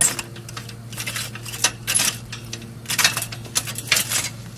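Hand-pushed wheel hoe being pushed through stony soil, its metal wheel and cultivator tines clinking and rattling irregularly.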